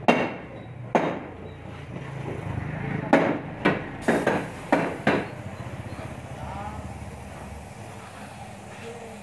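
A series of seven sharp knocks, irregularly spaced over the first five seconds, then a steady low background hum.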